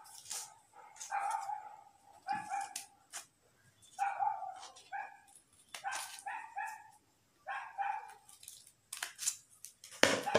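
Scissors snipping through sheets of coloured paper in quick sharp clicks, mixed with many short high-pitched squeaks that come in quick runs throughout.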